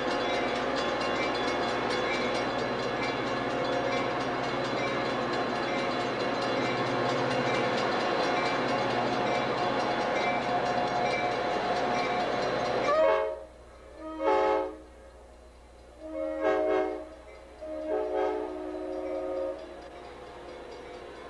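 Amtrak F40PH diesel locomotive running steadily as the train moves past. About thirteen seconds in that sound stops abruptly and a train horn sounds four blasts at a grade crossing, the last one the longest.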